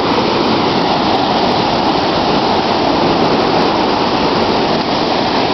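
Floodwater pouring through the open floodgates of a river dam: a loud, steady roar of rushing, crashing water, with spray falling like rain.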